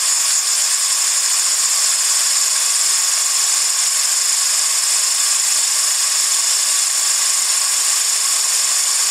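Steady hiss of compressed air jetting from a nozzle through a venturi onto a small fan blade, with the fan whirring as it drives a small generator; the air supply is turned up to about 4 litres a minute.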